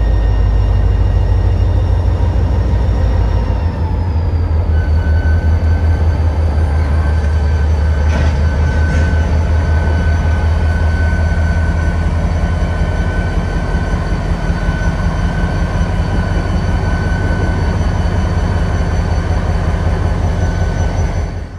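EMD GP40-2 diesel locomotive passing close at low speed, its engine running with a loud, deep rumble. The engine's tones dip in pitch about four seconds in, and a steady high whine joins soon after.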